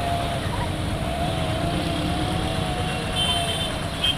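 Road traffic driving through floodwater: motorcycle and auto-rickshaw engines running over a steady rush of noise, with a faint wavering whine and brief high tones near the end.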